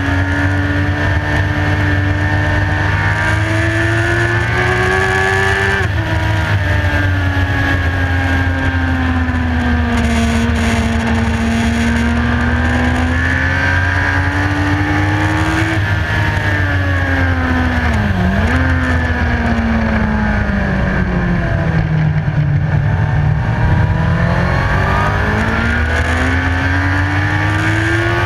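Motorcycle engine running hard on a race track, heard from on board: its pitch climbs, drops sharply about six seconds in, sags and builds again through a long bend, dips sharply a little past halfway, then climbs steadily toward the end. Heavy wind rumble on the microphone runs underneath.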